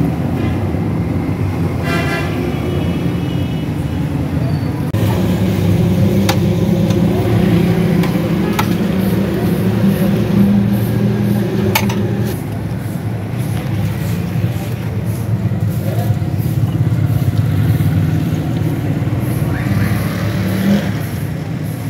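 Street traffic noise with a motor vehicle's engine running steadily close by, a low even hum, and a few sharp clicks.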